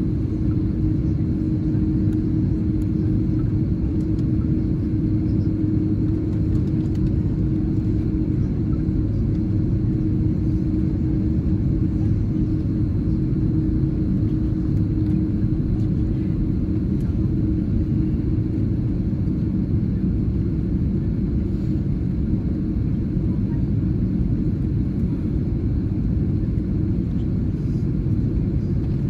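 Cabin noise of an Airbus A330-300 taxiing after landing: a steady low rumble heard from inside the cabin, with a steady hum that fades about halfway through.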